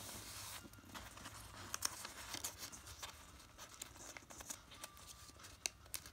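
Faint rustling and crinkling of origami paper as it is folded and creased by hand, with a few light, sharp ticks.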